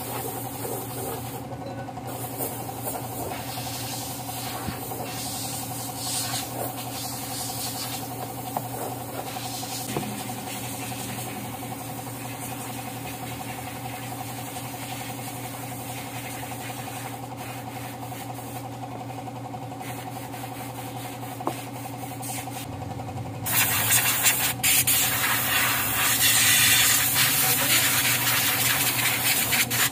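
A steady machine hum, with a few light knocks. About 23 seconds in, a compressed-air blow gun starts hissing loudly as it blows brake dust off a minibus's drum-brake backing plate and hub.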